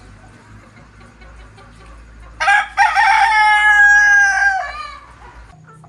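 A rooster crows once, starting about two and a half seconds in: a short first note, then a long held note that fades away.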